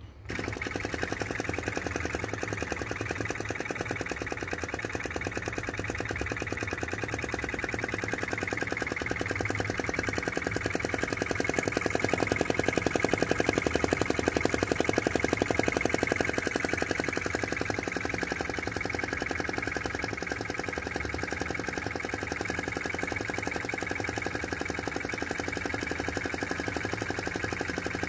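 Model vacuum (flame-licker) engine with a wick burner running fast after its flywheel is spun by hand: a rapid, even clatter of its valve and piston that comes in suddenly at the start and grows a little louder about halfway through.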